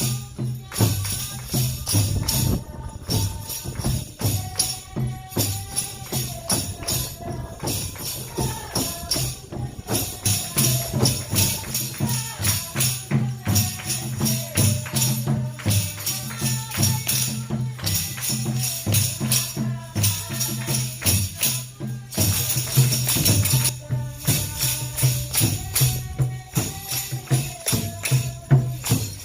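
Music with a steady percussive beat, a repeating bass line and a melody over it.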